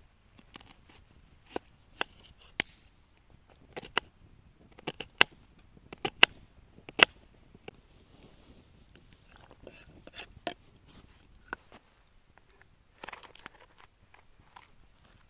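Kitchen knife chopping a raw onion on a wooden cutting board, the blade striking the board in sharp, irregular knocks through the first half. Later come softer scrapes and rustling as the chopped onion is cleared off the board and a plastic tray is handled.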